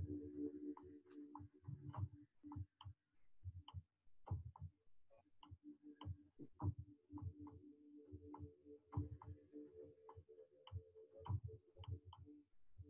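Faint regular ticking, about three ticks a second, over a soft held chord.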